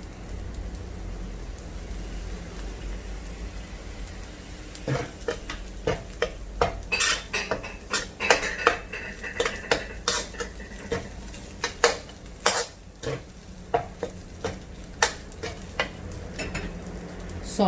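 A cooking utensil scraping and knocking against a pan as egg fried rice is stir-fried with soy sauce, with a light sizzle. For the first five seconds there is only a steady low hum, then the irregular clinks and scrapes begin.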